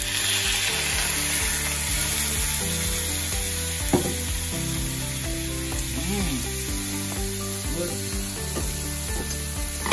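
Salmon fillets sizzling in a frying pan as a splash of sake hits the hot pan. The sizzle is loudest in the first second, then settles into a steady frying hiss.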